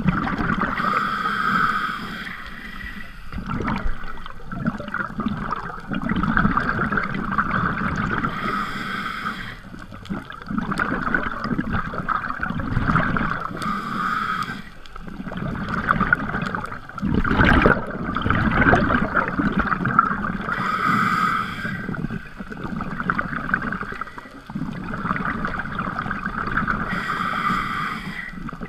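Scuba diver's regulator breathing underwater, heard through the camera's waterproof housing: a breath drawn about every six to seven seconds, with gurgling exhaust bubbles in between.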